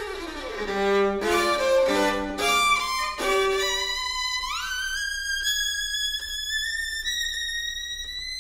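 Unaccompanied solo violin playing a cadenza: a quick run sweeps down into the low register and turns through fast low notes, then about four seconds in it slides up to a long high note that creeps slowly higher in pitch.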